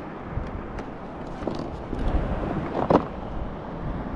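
Wind rumbling on the microphone, with a few light clicks and knocks and a short sound about three seconds in.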